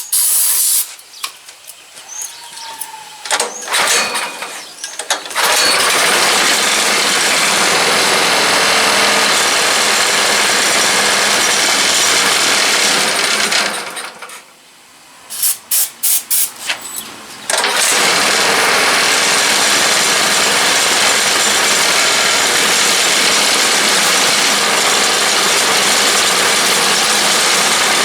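Small snowblower engine, primed with starting fluid, catches about five seconds in and runs steadily, then dies about halfway through. After a few short sputtering firings it catches again and runs. The owner takes this engine for one with worn rings, low compression and blow-by.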